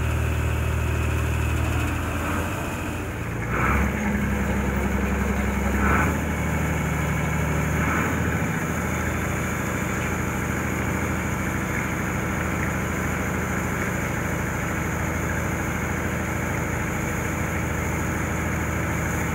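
Tourist boat's engine running with a steady low drone. Its note shifts a few times in the first several seconds, with three short louder moments, then holds even.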